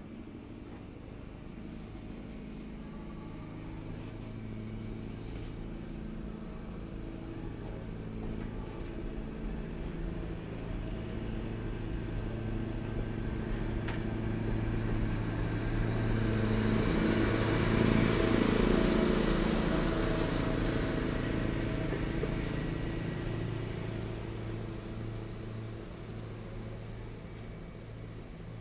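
Diesel locomotive passing through with its engine running steadily, growing louder to a peak about two-thirds of the way through and then fading as it moves away.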